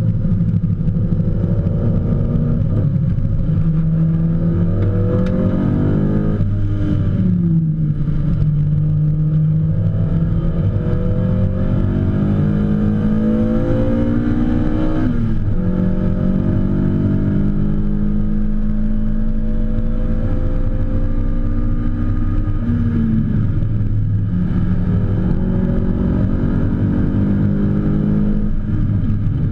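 BMW M3 E30 race car's engine under hard acceleration, heard from inside the cabin. Its pitch climbs steadily and drops abruptly at gear changes about 7, 15 and 23 seconds in.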